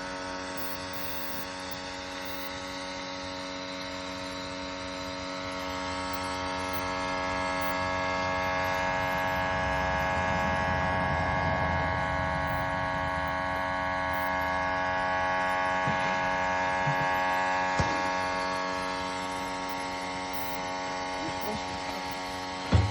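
Steady electric motor hum of the furnace's running equipment, holding several even tones, swelling louder in the middle and easing off again. A single knock near the end.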